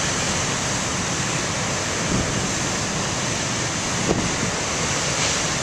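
Heavy ocean surf breaking and washing in a steady roar of noise, with wind buffeting the microphone.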